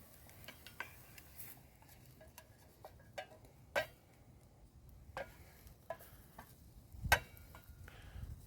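Scattered light clinks, taps and scrapes of a spatula against a pan as a biscuit is worked loose and flipped, with a louder knock about seven seconds in.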